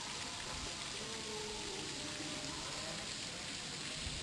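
Steady hiss of falling water, even and unbroken.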